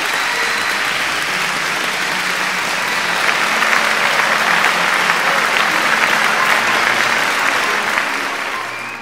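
A crowd applauding, dense clapping that swells a few seconds in, fades near the end and then cuts off suddenly.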